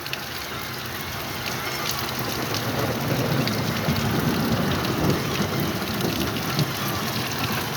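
Heavy rain pouring down steadily, with small drip ticks, and a low rumble of thunder building from about a third of the way in.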